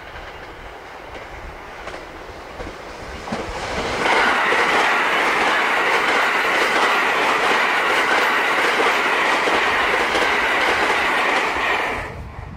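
Eleven-car 683 series electric limited express train approaching and then passing close by on a curve. About four seconds in it grows loud: wheels clattering over rail joints, with a steady high tone over the clatter. The sound cuts off near the end.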